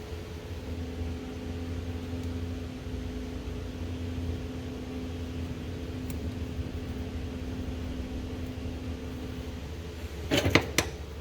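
Steady hum of a small motor or fan, with a second tone that sets in shortly after the start and drops out near the end. Near the end comes a brief, louder clatter of metal clinks, from tools or bolts being handled while the starter's mounting bolts are threaded in.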